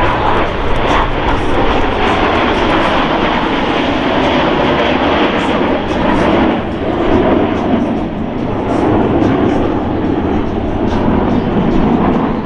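Loud, steady roar of Boeing F/A-18E/F Super Hornet jet engines during a flying display, swelling and easing slightly as the jets move.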